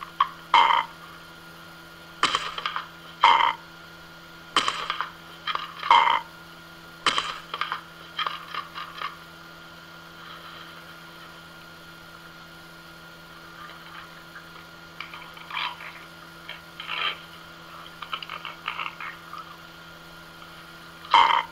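Amazon parrot giving short loud squawks about once a second, then a quick run of quieter ones and some softer calls, with another loud squawk near the end, over a steady low hum.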